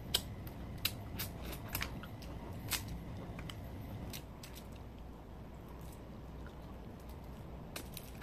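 Cooked crab being eaten by hand: scattered sharp clicks and cracks of shell being broken and picked apart, with chewing and sucking of the meat. The clicks come thickest in the first few seconds, thin out in the middle, and pick up again near the end.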